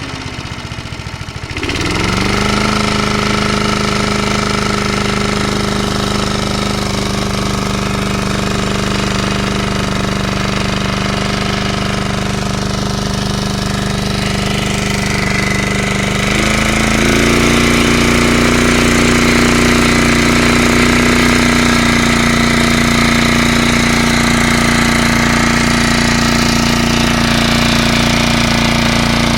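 Briggs & Stratton 3.5 hp single-cylinder engine of a vintage Hayter Hayterette rotary mower running steadily. Its note dips briefly and picks up again near the start. About 16 seconds in, its pitch steps up and it runs a little louder.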